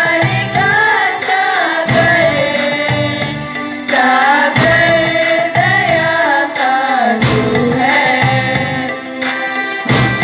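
A song: a melodic voice singing over instrumental accompaniment, with a heavy beat that falls about every two and a half to three seconds.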